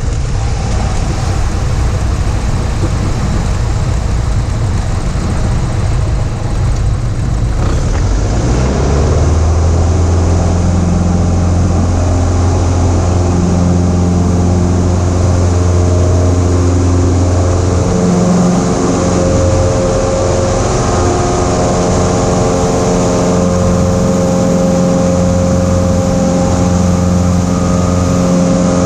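Cessna 172's piston engine and airflow noise. For the first several seconds it is a rough, noisy rush. About eight seconds in, the engine comes up to a strong, steady drone, typical of power being applied for the takeoff in a touch-and-go, and it holds steady after that.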